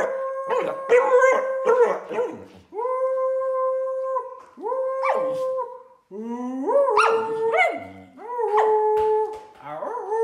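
Samoyed howling: a run of drawn-out notes, each about a second long with short breaks between them. The later notes slide up and down in pitch.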